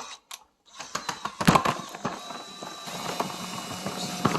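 Cordless drill running slowly forward, driving a screw, starting about a second in with a few knocks as it bites.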